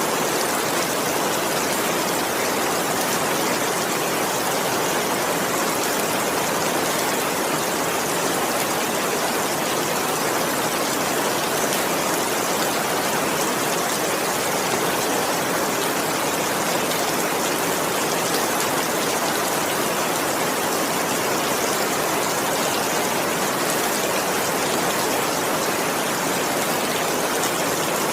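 Heavy rain falling steadily, a dense even hiss with no thunder and no single drops standing out.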